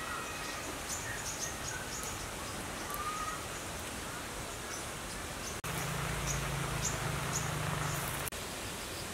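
Outdoor background noise with small birds chirping. Past the middle, a low steady hum comes in suddenly for about three seconds and cuts off just as suddenly.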